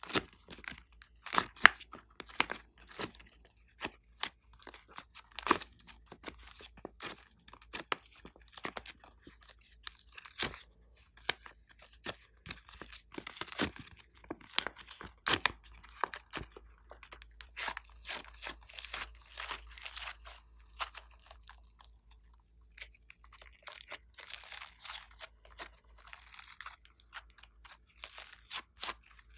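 Glossy slime squeezed, stretched and folded by hand, giving rapid irregular sticky clicks and pops, with stretches of softer crackling in between.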